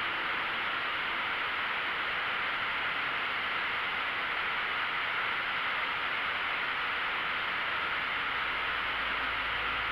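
Steady rushing noise of a small aircraft in cruising flight, engine and airflow blended into an even hiss, with a low rumble coming in near the end.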